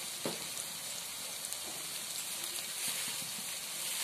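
Onion-tomato masala sizzling in oil in a wok, a steady frying hiss, with a light tap about a quarter second in.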